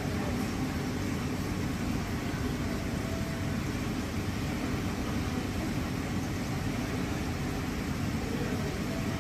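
Steady low rumbling noise at an even level, with no distinct events.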